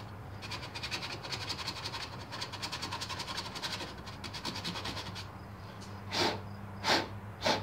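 Sandpaper rubbing quickly back and forth on a painted metal ground point, sanding off paint to clean the electrical ground for the blower motor. Near the end come three short, louder swishes.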